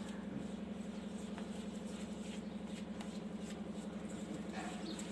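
Spatula stirring chocolate cake premix and water in a steel bowl, with faint irregular scrapes and taps against the bowl. A steady low hum runs underneath.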